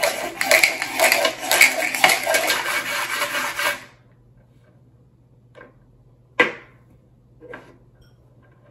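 Several dice clattering inside a plastic cup swirled across a tabletop to stack them into a column; the rattling stops abruptly about four seconds in. Three separate short clicks follow, the middle one the loudest.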